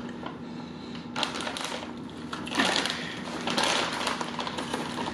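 A plastic bag of pork rinds crinkling as it is picked up and handled, with crisp crunching as the rinds are taken out and bitten. The crackling starts about a second in and is loudest around the middle.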